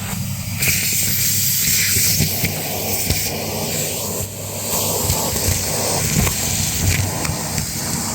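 Numatic Hetty tub vacuum cleaner running and sucking up a gritty dirt mix through its tool and hose: a steady motor hum under a rushing hiss of air, with a constant scatter of crackles and clicks as the grit rattles up the hose.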